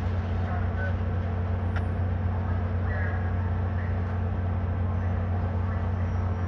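An engine running steadily: a low, even rumble with no change in pitch or level.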